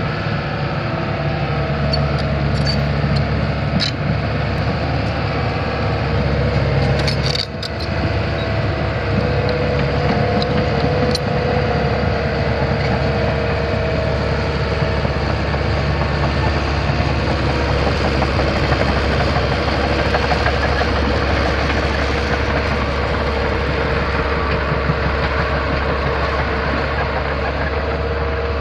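Komatsu PC150LC-6K excavator's four-cylinder diesel engine running steadily, with a few light clicks and a brief knock about seven seconds in.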